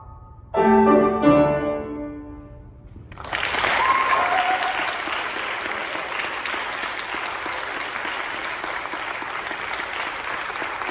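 Closing piano chord struck and left to ring and fade, then applause breaks out about three seconds in and carries on steadily.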